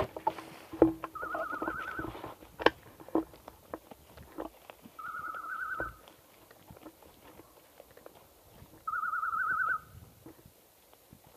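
Electronic beeper collar on a hunting setter sounding a short warbling tone three times, about four seconds apart, over twigs snapping and brush rustling underfoot.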